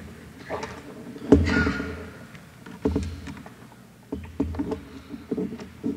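Scattered knocks and low thumps picked up by the lectern microphone as it is handled while the next speaker sets up at the podium, about six separate bumps with the loudest near the start.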